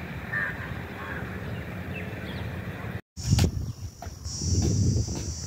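Outdoor ambience with a steady low rumble and a few short bird chirps. Then, after an abrupt cut, insects keep up a steady high-pitched drone over several low thumps and clicks, the loudest thump just after the cut.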